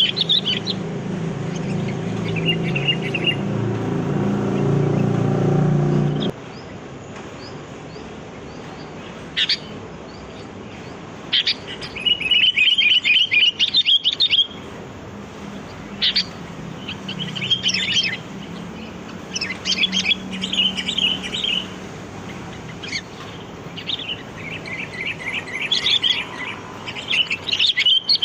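Sooty-headed bulbuls calling: short, quick chattering phrases repeated every few seconds, the loudest a run of about two seconds near the middle. A low rumble lies under the first six seconds and cuts off suddenly.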